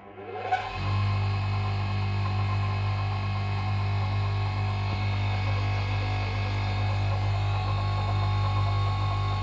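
Gude bench grinder's electric motor switched on, spinning up in under a second with a rising whine, then running at speed with a steady hum.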